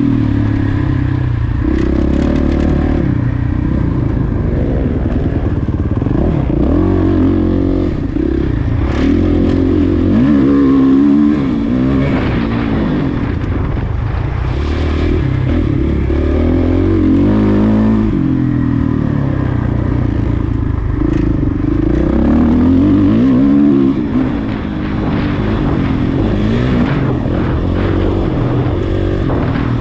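Off-road racing motorcycle engine heard from on board, revving up and dropping back again and again as the bike is ridden hard over a rough course.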